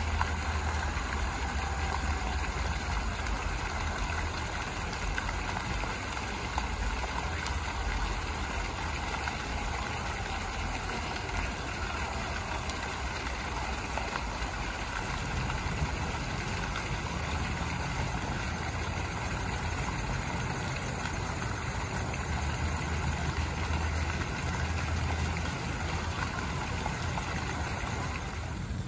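Fountain jets splashing steadily into a pool, a continuous rushing water noise, over an uneven low rumble.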